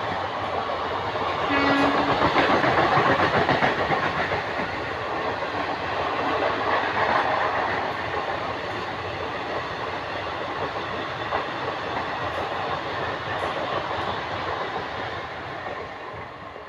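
ICF passenger coaches rushing past at speed, wheels clattering rhythmically over the rails. The noise fades as the last coach goes by near the end.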